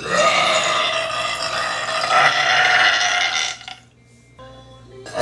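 A woman's long, drawn-out burp lasting about three and a half seconds.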